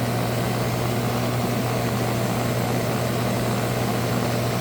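Hot tub pump motor running with a steady low electrical hum, the noise the owner thinks comes from a bad motor.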